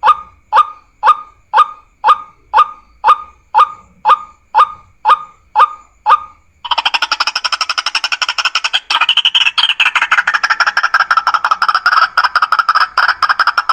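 Lure recording of geguak bird calls: a steady series of sharp calls, about two a second, that about seven seconds in gives way to a dense, rapid chattering.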